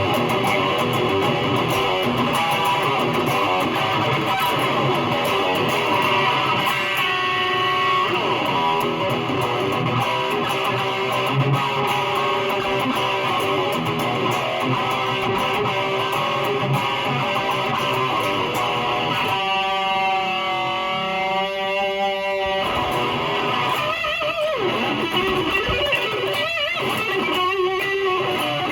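Electric guitar played through a Fender Champion 20 practice amplifier: continuous strummed and picked playing, with a chord held and wavering for a few seconds about two-thirds of the way in.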